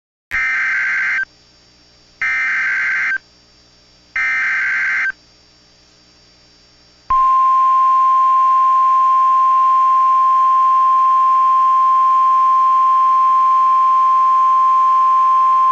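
NOAA Weather Radio emergency alert signal: three one-second bursts of buzzy, warbling SAME digital header data with short gaps between them, then about seven seconds in the long steady warning alarm tone begins. It is the signal that opens a tornado warning broadcast.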